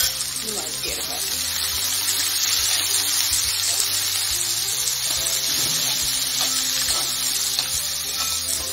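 Sliced onions and green chillies sizzling in hot oil in a metal pot, stirred with a spoon: a steady frying hiss.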